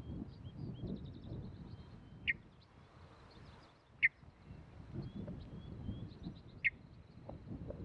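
Three short, sharp chirps a couple of seconds apart, over fainter high twittering of small birds and a low, irregular rustling.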